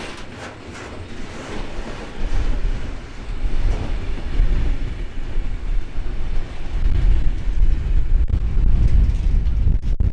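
Slow freight train of stake wagons loaded with large steel pipes rolling past, its wheels clacking at an even beat over rail joints at first. A deep rumble swells in the second half.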